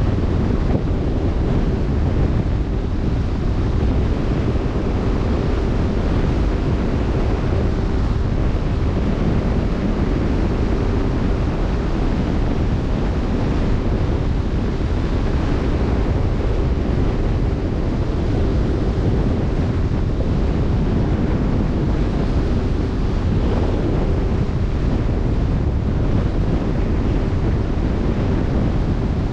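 Wind buffeting the microphone over the steady rush of open-sea waves, with a faint steady tone running underneath.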